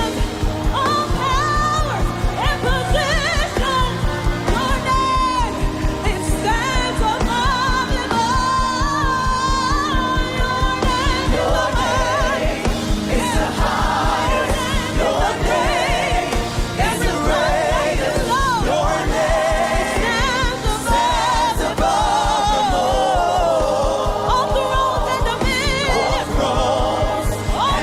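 Worship music: singing voices with a wavering vibrato over a band with a steady, evenly repeating beat.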